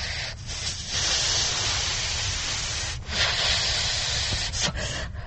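A person breathing deeply through an anaesthetic gas mask: two long hissing breaths, the second starting about three seconds in.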